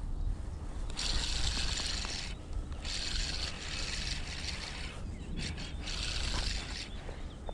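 Spinning reel being cranked to retrieve a lure: the mechanical whir of handle and rotor with line scraping, over a steady low rumble.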